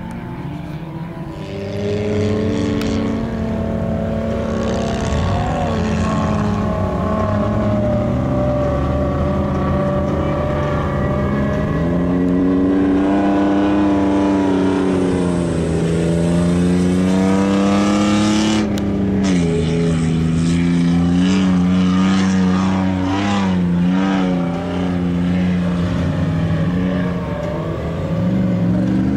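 A vehicle engine running hard in the dunes, its revs rising and falling again and again. It gets louder about a second and a half in.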